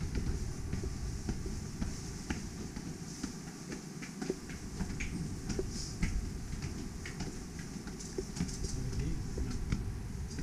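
Footsteps of several people climbing stone steps: irregular taps and scuffs of shoes on stone over a steady low rumble.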